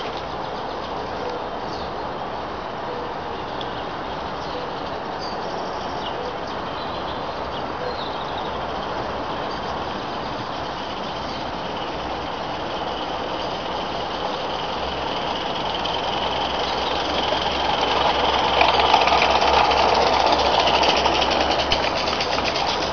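Mamod live-steam locomotive on a 32 mm gauge garden railway, running at a steady speed with its steam exhaust beat and the clatter of its wheels and wagons on the rails. It grows louder towards the end as the train comes close and passes.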